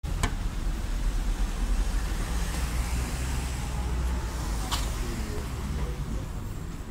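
Street traffic noise: a steady low rumble with an even hiss. A single sharp click is heard about four and a half seconds in.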